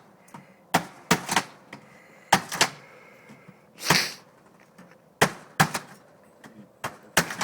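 Sharp knocks and bangs of an old window being pried and wrenched out of its opening during demolition, coming in irregular clusters, with a short rasping, crunching noise about four seconds in.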